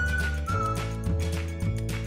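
Outro background music with a steady beat, a bass line that changes note every half second or so, and a high melody of short held notes.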